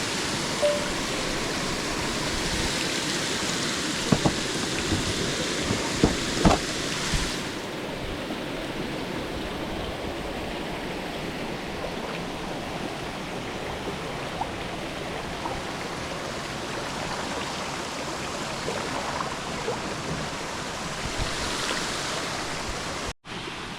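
Waterfall rushing steadily, a dense, even roar of falling water that turns duller about a third of the way in. There are a few light knocks near the start, and the sound cuts out briefly near the end.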